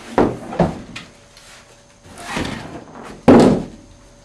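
Box and packaging being handled while unpacking: two short knocks near the start, a scraping rustle a little past halfway, then a loud thump near the end, the loudest sound.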